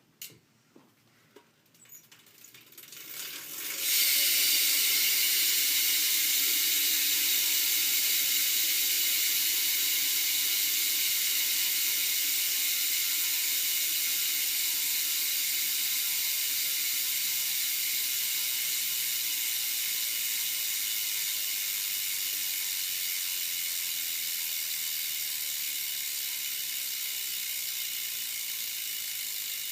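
Profile Mini BMX cassette hub freewheeling, its pawls making a loud, even buzz. The buzz builds over the first few seconds as the wheel is spun up, then slowly fades as the wheel coasts down, and is cut off abruptly at the very end.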